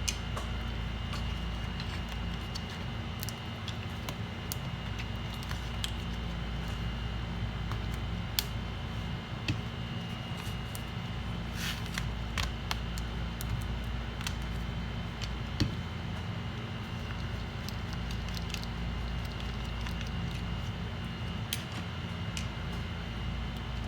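Steady low hum of workbench equipment with scattered light clicks and taps of small tools handling a laptop logic board, and a faint high whine that comes and goes.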